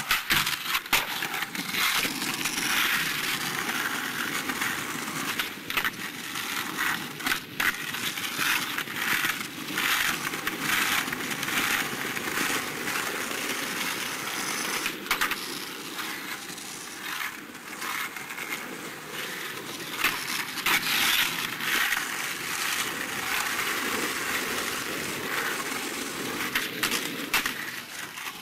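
Skateboard wheels rolling over paving slabs in a steady rumble, broken by many sharp clacks and knocks as the board hits the ground.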